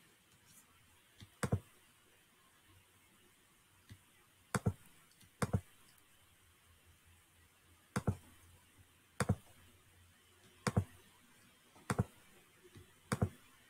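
Computer mouse button clicking about eight times at irregular intervals, each click a quick pair of sharp snaps.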